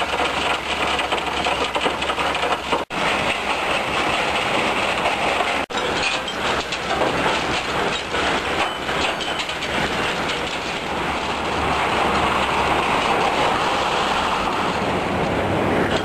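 Scrap-metal shredding plant running: a loud, continuous clatter and rattle of machinery and metal pieces, cutting out for an instant about three and six seconds in.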